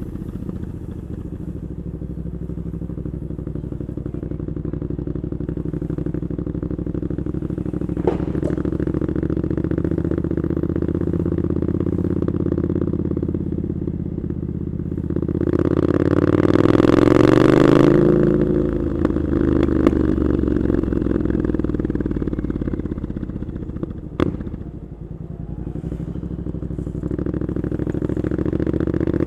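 Triumph Scrambler 900's parallel-twin engine running through Arrow exhaust pipes while riding. About halfway through the revs climb to the loudest point and then drop away, ease off again later, and build once more near the end. Two short sharp clicks are heard, about a third of the way in and again later.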